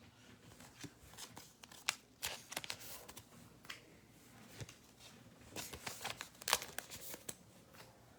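Faint handling of trading cards and a foil card-pack wrapper: short sliding, scraping and crinkling noises in scattered clusters, busiest about two seconds in and again about six seconds in.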